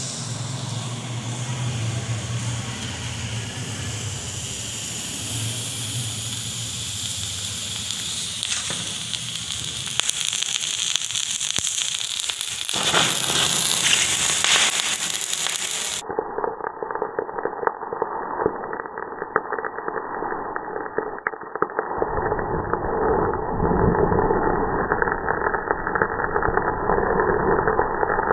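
Potassium permanganate and glycerin reacting: a steady hiss as the pile heats, then a brighter hissing flare as it catches fire about halfway through, with crackling from the burning pile. After the flare the sound turns muffled.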